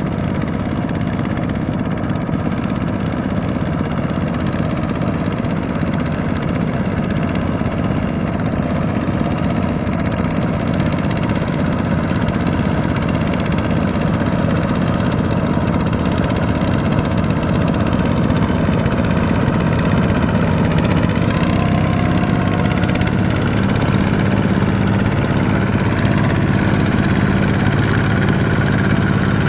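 Tractor engine running steadily. About three-quarters of the way through its note settles into a steadier, slightly louder drone.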